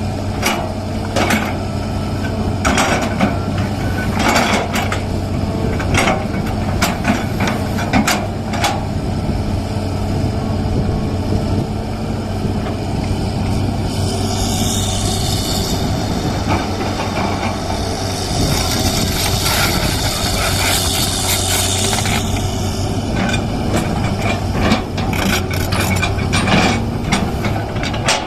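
Hydraulic excavator's diesel engine running steadily while it digs a drainage ditch. Repeated knocks and clanks come through the first several seconds and again near the end, and a high hiss rises and fades in the middle for several seconds.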